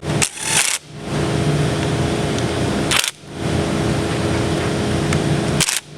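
Three short hissing bursts of a power tool running down the solenoid block bolts on a 42RLE transmission valve body, under a steady fan-like hum.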